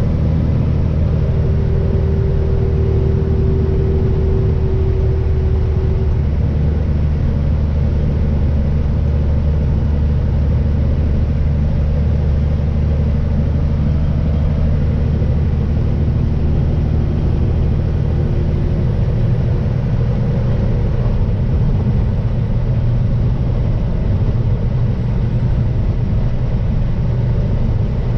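Semi-truck diesel engine and road noise heard from inside the cab while driving: a steady low drone whose engine note changes about twenty seconds in.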